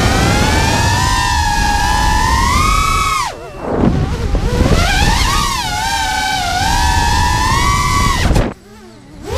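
An FPV racing quadcopter's Emax RS2205 2300 kV brushless motors and three-blade props whine, the pitch rising and falling with the throttle, with wind rushing over the onboard camera's microphone. The whine drops away twice as the throttle is cut: briefly a little past three seconds in, and again near the end.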